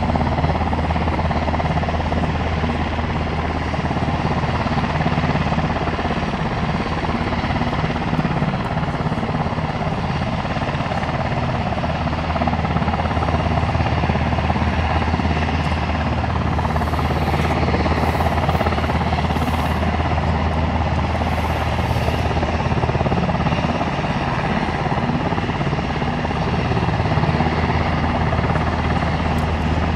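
Helicopter engine and rotor running, a loud steady low drone.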